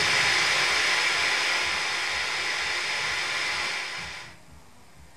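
A dense wall of electronic noise from live electronics and effects units, a steady hiss across the whole range, that fades away about four seconds in, ending the piece.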